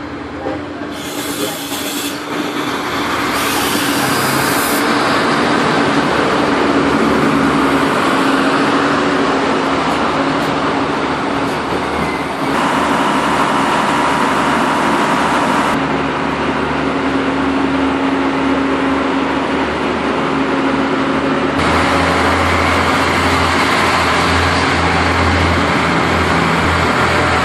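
Iarnród Éireann diesel railcars at the platform: a 29000-class commuter unit pulls in and stands with its engines running, with two short bursts of high hiss in the first few seconds. About twenty seconds in, the sound changes to a green 22000-class InterCity railcar running alongside with a deeper, steady engine hum.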